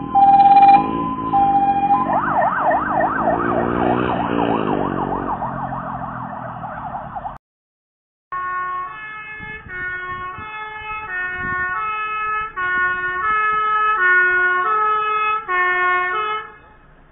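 Fire engine siren on an emergency run, alternating between two tones, then switching to a fast up-and-down yelp of about three sweeps a second that cuts off abruptly. After a moment of silence comes a loud run of stepped, changing tones that ends suddenly near the end.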